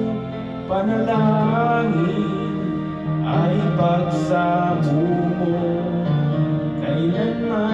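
Karaoke: a man sings into a handheld microphone over a music backing track played through the room's speakers, with a new sung phrase starting about three seconds in.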